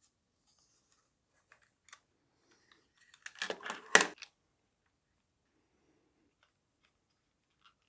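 Hard plastic parts of a gel blaster drum magazine clicking and rattling as they are handled and fitted together. There are a few faint ticks, then a short burst of clatter about three seconds in that ends in one sharp click just after four seconds.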